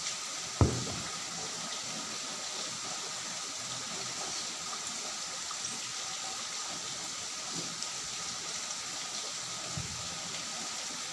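Steady background hiss, with one sharp low knock about half a second in and a few fainter thuds near the end.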